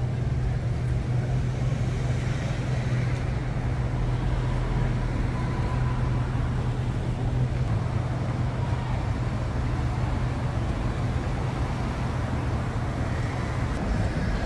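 City street traffic: cars passing over a steady low hum.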